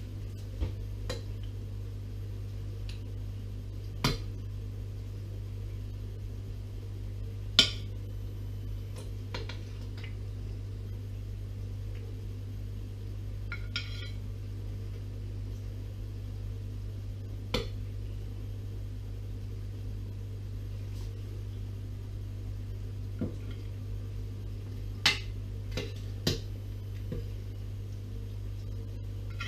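Scattered light clinks of a utensil and fingers against a ceramic baking dish and plate as cooked rabbit legs are lifted out and laid on the plate, about half a dozen sharp knocks in all. Under them runs a steady low hum.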